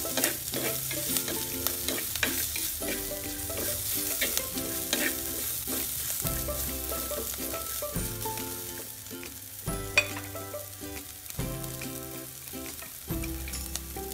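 Sliced onions, green chillies, garlic and curry leaves sizzling in hot coconut oil in a clay pot, stirred with a wooden spoon. The spoon knocks and scrapes against the pot now and then, with one sharper knock about ten seconds in.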